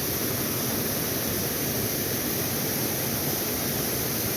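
Steady rushing of a small creek's flowing water, an even hiss that holds at one level throughout.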